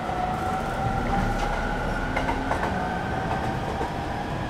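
Interior of a moving equipment-renewed E231 series train: the Hitachi IGBT-VVVF inverter and traction motors give a steady whine rising slowly in pitch as the train accelerates. Under it runs the rumble of wheels on rail, with a few faint rail-joint clicks.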